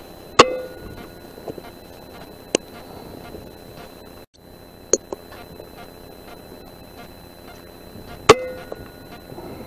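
Two shots from an Air Arms S510 .177 PCP air rifle, about eight seconds apart, each a sharp crack followed by a brief ringing tone. A few lighter clicks come between them.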